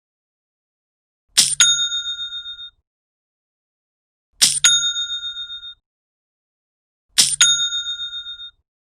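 Cash-register 'cha-ching' sound effect, the Shopify sale notification, played three times about three seconds apart. Each one is a sharp click followed by a bright bell ring that decays with a flutter over about a second.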